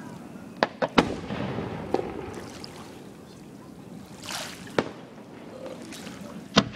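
Fireworks going off: a quick run of three sharp bangs about a second in, single bangs at about two and five seconds, and the loudest bang near the end. A brief hiss comes just before the bang at five seconds.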